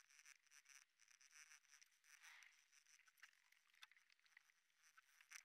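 Faint, irregular scratching of a pencil drawn in short strokes across drawing paper, with small ticks as the lead touches down.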